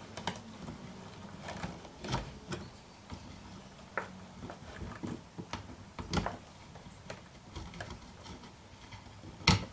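Scattered small clicks and knocks from hands fitting a part onto a homemade wooden drum carder, with a few sharper clicks: one about 2 seconds in, one about 6 seconds in, and the loudest near the end.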